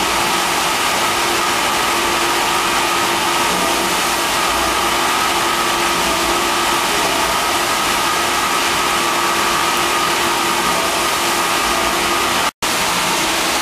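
84-inch Blanchard rotary surface grinder's abrasive wheel grinding a large flat metal plate under coolant: a loud, steady grinding hiss over a constant machine hum. The sound cuts out for an instant near the end.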